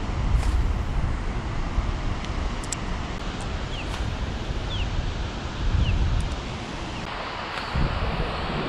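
Wind buffeting the microphone in uneven gusts over a steady rush of water.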